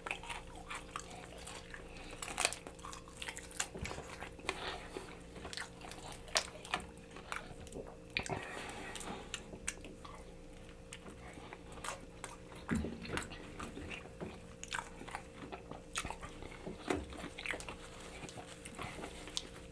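Close-up eating sounds of fried chicken: irregular crunchy bites and wet chewing, with many small crackles.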